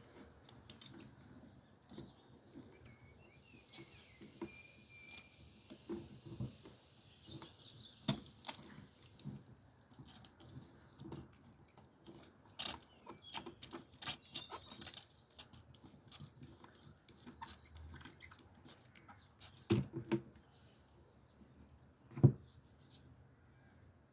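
Scattered light clicks, taps and knocks of tools and parts being handled, at irregular intervals, with a couple of louder knocks near the end.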